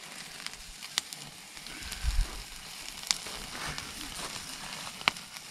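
Steaks sizzling on a grill grate over an open wood fire: a steady hiss, with a few sharp pops about one, three and five seconds in and a brief low thump about two seconds in.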